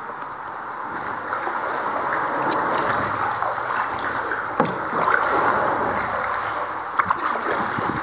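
Water rushing and splashing around a canoe being paddled through a shallow, rocky stretch of river, with a few sharp knocks about halfway through and near the end.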